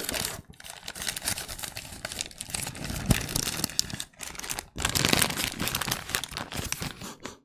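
Paper wrapper of a Burger King Whopper crinkling and rustling as it is unfolded by hand close to the microphone, with a few short pauses.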